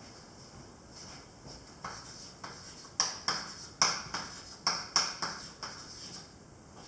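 Chalk writing on a blackboard: from about three seconds in, a quick run of sharp taps and short scrapes as the letters are stroked on.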